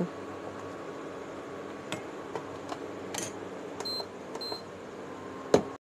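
Pigeon induction cooktop beeping twice, about four seconds in, as its power setting is turned down, over a steady hum. A few light clicks and a sharp knock come before the sound cuts off near the end.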